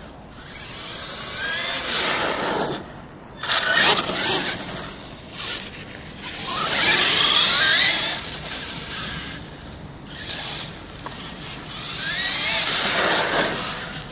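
Traxxas E-Revo 2.0 RC monster truck driving on asphalt: the electric motor whines up and down in pitch with the throttle over the hiss of its tyres, swelling loud about four times as it speeds past and fading between passes.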